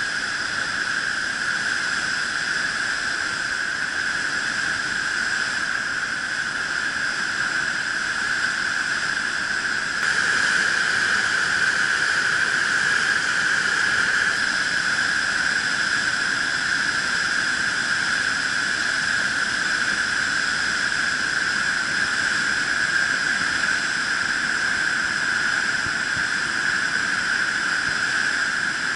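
River in flash flood, fast turbulent water churning below a bridge: a loud, steady, high-pitched rushing noise that steps up in level about ten seconds in.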